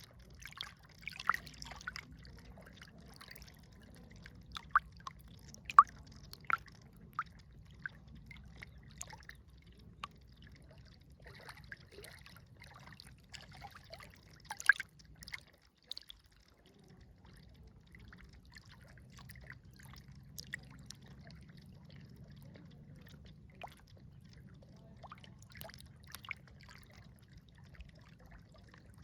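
River water trickling and dripping, with many sharp plinks and splashes over a low steady rush, busiest in the first half. The low rush drops out briefly about halfway through.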